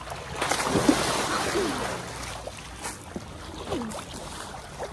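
Pool water splashing, loudest for about two seconds early on, then softer sloshing, with a few short vocal sounds.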